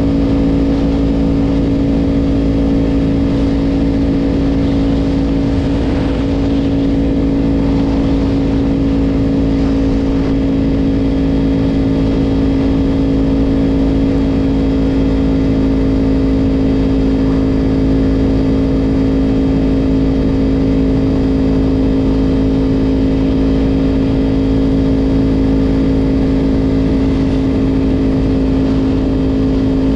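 Yamaha R1 sport bike's inline-four engine running at a steady, unchanging engine note while riding, with a low even rumble underneath.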